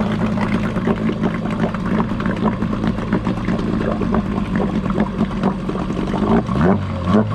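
Mariner 8 hp outboard, a Yamaha-built two-cylinder two-stroke, running steadily at idle just after an easy pull start from long storage. Its pitch wavers slightly near the end.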